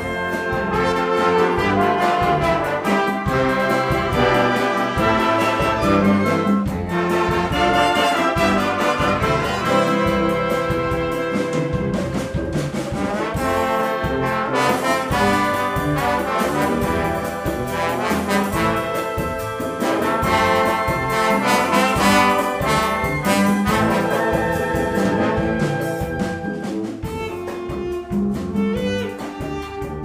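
Symphonic wind band playing: clarinets, trumpets and trombones with double bass, a full ensemble of many held notes.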